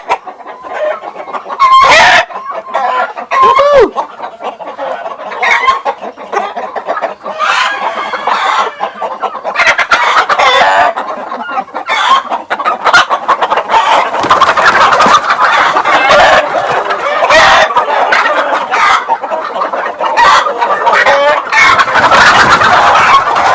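A flock of native village chickens clucking and calling over one another, with roosters crowing now and then. The clucking grows denser and louder through the second half.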